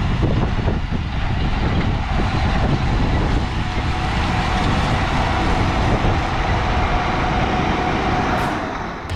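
Large farm machine's engine running steadily, loud and dense with a deep rumble, fading away near the end.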